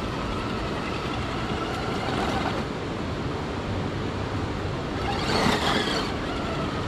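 Axial SCX10 Pro RC rock crawler's electric motor and drivetrain whining steadily as it crawls, with a louder rush of noise about five and a half seconds in.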